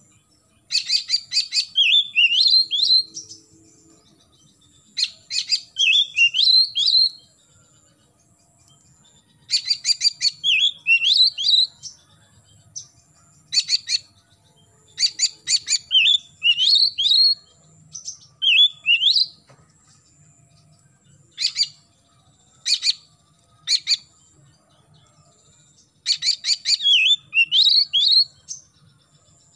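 Oriental magpie-robin (kacer) singing in repeated phrases, each a fast clicking rattle followed by short rising and falling whistled notes, with pauses of a second or two between phrases.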